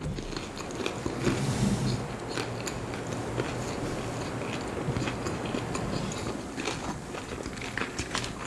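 Close-up mouth sounds of a person biting and chewing food, with small irregular wet clicks and crunches.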